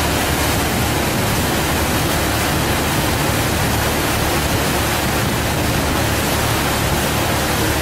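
Steady, loud rushing noise aboard a moving river boat: wind buffeting the microphone over the low, even hum of the boat under way.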